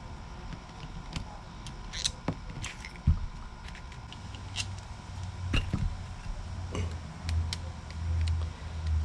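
Scattered small clicks and taps of tailgate lock parts being handled and fitted by hand, with a low rumble from about four seconds in.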